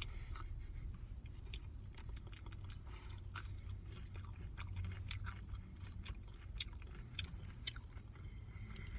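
A person chewing a fried chicken nugget dipped in barbecue sauce, close to the microphone: a run of irregular short, sharp mouth clicks over a steady low hum.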